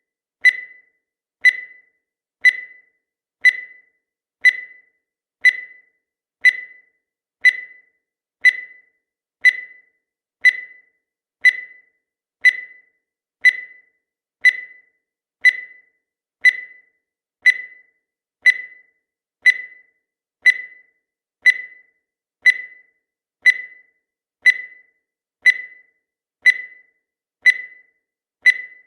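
Countdown timer sound effect: a short, high-pitched beep once every second, each starting sharply and fading away quickly.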